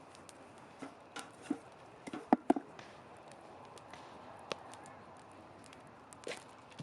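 Wood fire crackling in a fire pit: scattered sharp pops over a faint hiss, with a few louder knocks of wood about two seconds in and again near the end.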